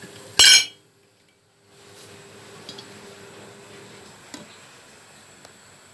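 A short loud clatter about half a second in, then the sound drops out for about a second. After that comes a steady low hiss with a few light clinks as the white enamel cooking pot's lid is handled.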